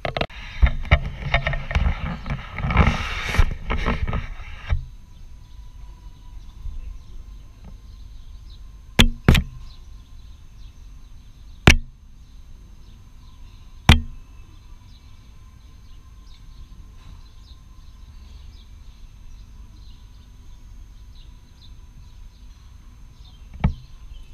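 Rustling and knocking on the camera for the first few seconds, then a few sharp taps on the camera a couple of seconds apart as a kitten paws at the lens, over low background noise.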